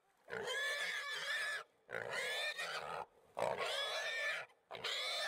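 Wild pig squealing while hunting dogs hold it down: four long, high squeals with short breaks between them.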